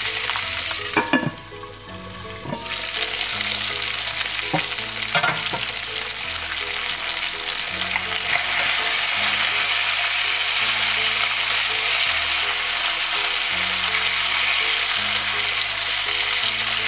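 Chicken wings sizzling as they fry in oil in an electric tagine base, with a few knocks of wooden chopsticks as the pieces are turned. The sizzle dips briefly about a second in, then grows louder from about eight seconds in.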